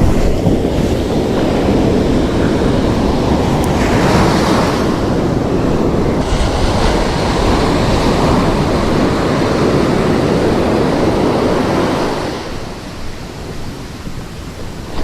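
Ocean surf breaking and washing up the beach, with wind buffeting the microphone. The rush eases off about three-quarters of the way through.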